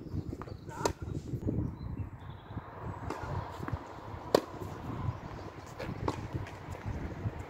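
Tennis ball being struck by racket strings and bouncing on a hard court: a few sharp pops, the loudest about four seconds in, over a low rumble.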